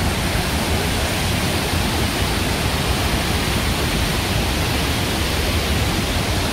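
Iguazu Falls, a great volume of water plunging over a broad horseshoe of cliffs, heard as a steady, even rush with a deep low rumble underneath.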